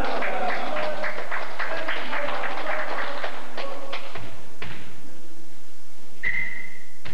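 Spectators clapping fast and in rhythm, about four or five claps a second, with some voices, for about four seconds after a rally in a gym. A couple of separate thuds follow. About six seconds in, one short steady blast of a referee's whistle signals the next serve.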